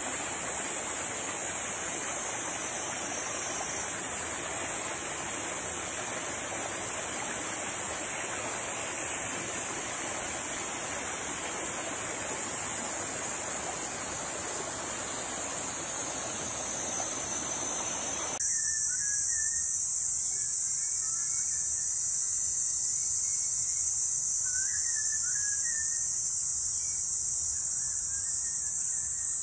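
Cicadas singing: a steady, high-pitched buzz. For the first two-thirds a rushing hiss lies underneath. Then it drops away suddenly and the buzz gets louder, with a few faint chirps.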